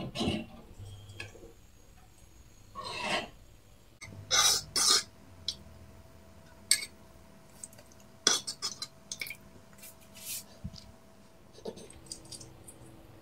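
Metal spoon stirring a thin spice liquid in a small pan, with scattered clinks and short scrapes against the pan's sides and bottom.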